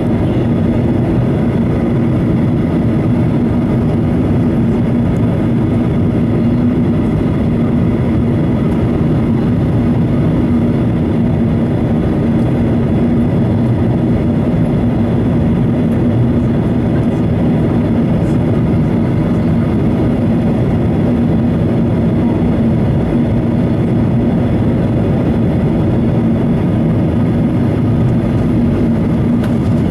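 Steady in-flight cabin noise of a Boeing 737-800, heard from a window seat beside the wing: its CFM56-7B turbofan engines and the airflow past the fuselage make an even drone with a low hum that does not change.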